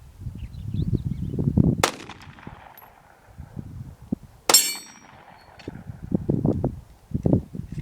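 Two 9mm pistol shots from a Glock 19, about two and a half seconds apart. The second is followed by a bright ringing clang of a steel dueling tree plate being hit. Low rumbling noise comes and goes in between.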